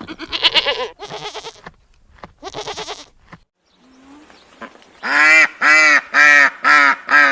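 A goat bleating three times, wavering calls, then after a short pause a duck quacking in a quick, loud run of about five quacks.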